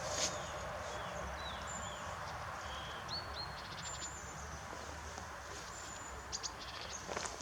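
Small birds giving short whistled calls, some sliding in pitch, over a steady low outdoor background noise, with a sharp click just after the start and a few more near the end.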